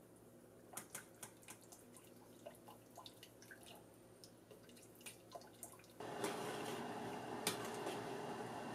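Chopsticks clicking and scraping against a metal ladle while miso paste is worked into the soup, a string of sharp clicks with small liquid sounds. About six seconds in, a steady hiss starts suddenly and stays.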